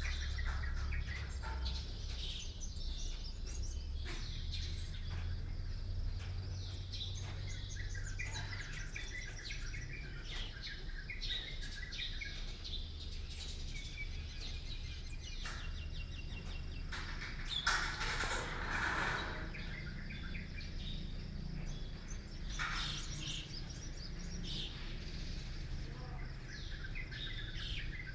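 Many small birds chirping and trilling together in the morning, over a steady low rumble. About two-thirds of the way through there is a louder burst lasting a second or two.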